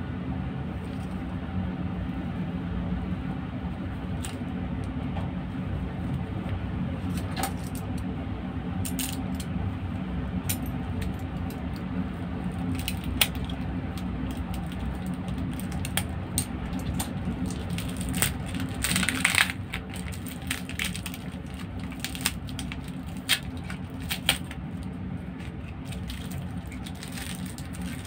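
Cellophane shrink-wrap on a plastic deodorizer cake crinkling and crackling as it is handled and slit with a box cutter. There are scattered sharp clicks and a longer scraping burst about nineteen seconds in, over a steady low background hum.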